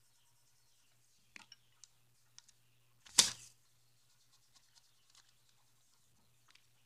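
Faint scattered clicks and taps from colouring supplies being handled, with one sharp knock about three seconds in, much louder than the rest.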